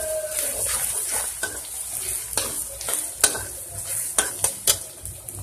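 Chopped onions sizzling in hot oil in a kadai while a spatula stirs them, scraping and clicking against the pan at irregular moments, with one sharp knock about three seconds in.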